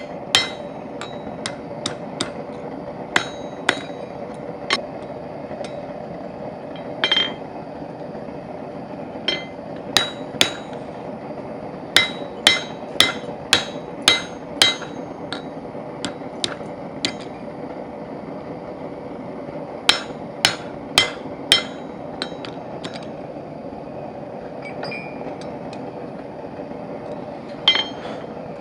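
Hand hammer striking a punch to drive square nail holes through hot iron bar stock for a forged hinge. The ringing metallic blows come in irregular groups with short pauses between, over a steady hum.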